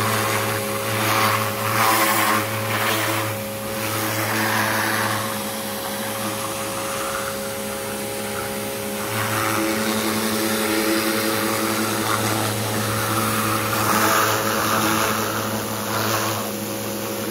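Pressure washer running steadily, its pump motor humming under the hiss of the water jet spraying a vinyl fence; the hiss swells and eases as the wand moves along the panels.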